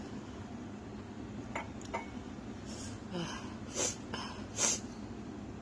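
A person eating very spicy chilli noodles makes a few small mouth clicks, then takes two sharp, noisy breaths about four and five seconds in. These are the sniffing, gasping breaths of someone suffering from the chilli heat.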